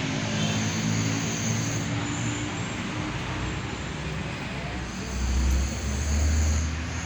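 A person snoring: a deep, rumbling snore heard over steady road traffic noise, swelling louder twice about five seconds in.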